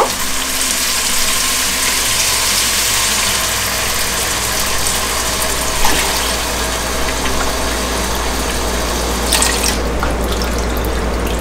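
Water poured cup by cup from a measuring jug into a measuring cup and into a pot of fried rice, a steady pouring and hissing, with a light knock about six seconds in.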